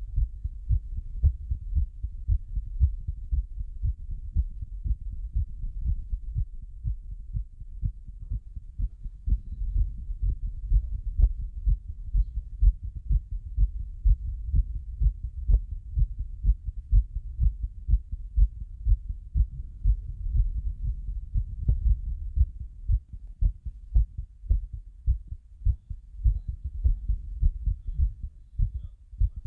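A person's heartbeat: heart sounds repeating in a steady run of low thumps.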